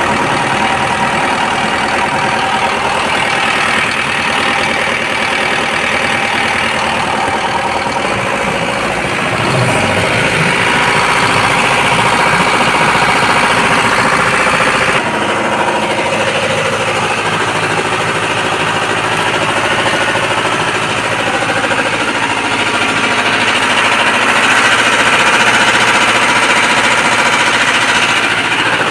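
Engine running steadily with an abnormal noise, its sound changing character slightly about 8 and 15 seconds in.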